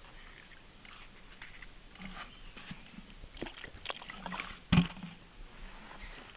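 Scattered small clicks and rustles of handling, with one sharp knock about three quarters of the way through.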